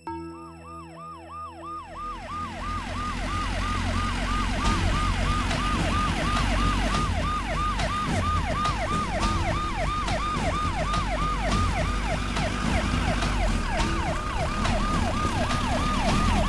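Ambulance siren cycling fast up and down, about three sweeps a second, growing louder over the first few seconds as it approaches and then holding steady, over a low rumble.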